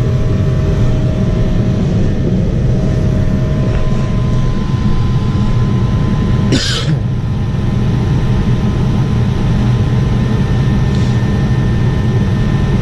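Lennox ML193 gas furnace running steadily with its pressure switch jumpered out: it stays on, which points to a faulty pressure switch as the cause of the short cycling. A brief, sharp, noisy sound stands out about six and a half seconds in.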